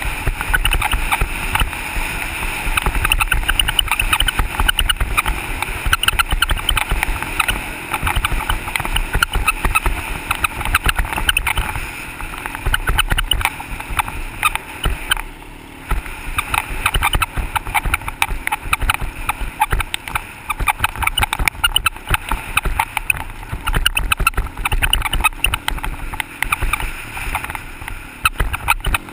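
ATV engine running as the quad is ridden over a rough dirt road, with constant rattling and knocks from the bumps; it eases off briefly about fifteen seconds in.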